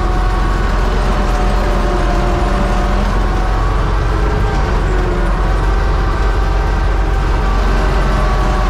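U-650 tractor's four-cylinder diesel engine running steadily under load while pulling a plough.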